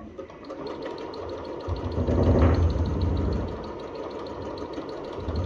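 Elna eXperience 540 sewing machine stitching: its motor runs with rapid, even needle ticks, and it grows louder for about a second around two seconds in.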